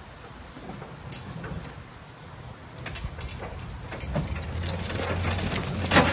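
Riding lawn mower pushed by hand down aluminium loading ramps from a pickup bed: the ramps rattle and clank under the wheels, with a low rumble of the tyres rolling for a second or two and a louder clank near the end as it comes off the ramps.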